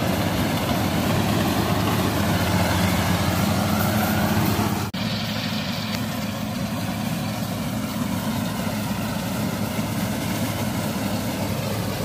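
Gatra GCH-858 combine harvester's 88 hp engine and machinery running steadily as it cuts rice, a continuous engine drone. About five seconds in the sound breaks off for an instant, then carries on quieter and more distant.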